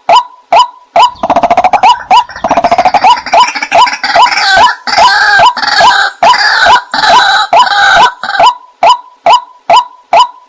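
White-breasted waterhen calling: a steady series of short, loud 'kwaak' notes about two a second. From about one second in until near the end, a busier stretch of rapid rattling and harsh croaking calls joins the series.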